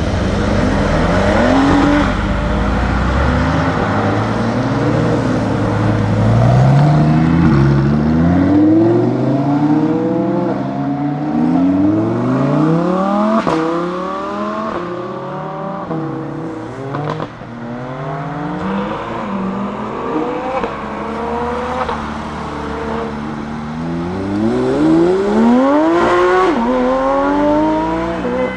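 Lamborghini Huracán STO's naturally aspirated V10 accelerating hard through the gears. The revs climb again and again, dropping back sharply at each upshift, with the steepest run ending about 26 seconds in.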